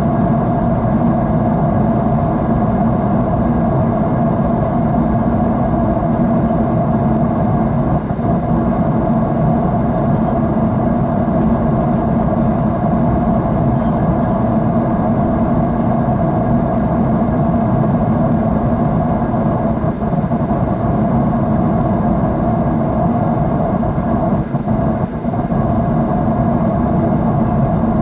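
Airliner's jet engines and rushing air heard inside the passenger cabin: a steady, loud drone with a low hum and a lower rumble beneath it.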